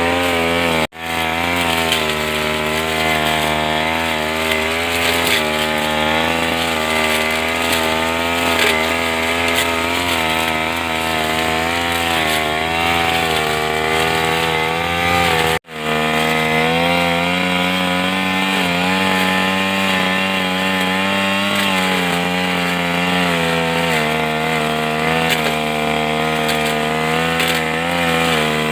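Grass cutter engine running steadily, its pitch wavering slightly up and down. The sound cuts out for an instant twice, about a second in and again around the middle.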